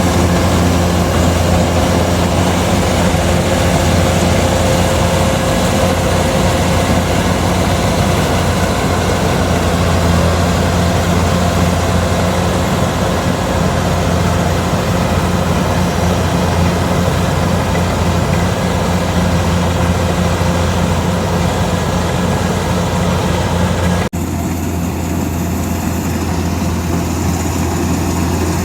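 Kubota DC-105X combine harvester's diesel engine running steadily at working speed with a deep, even hum, as the machine harvests rice. Near the end the sound changes abruptly to a slightly quieter mix.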